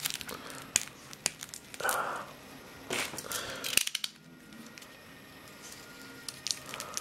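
Cellophane wrap on a small card box crinkling as fingers pick at it, with a run of sharp clicks from a snap-off utility knife as its blade slider is pushed out. The sound is busiest in the first four seconds and turns to quiet handling after that.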